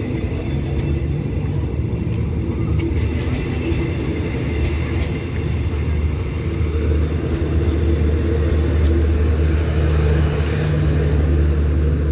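Diesel engine of a standing passenger train running steadily at idle: a low, even hum that gets louder in the second half.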